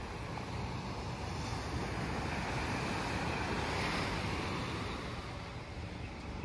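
Small surf washing onto a sandy beach, one wave swelling about two seconds in, peaking near the middle and easing off, with wind buffeting the microphone.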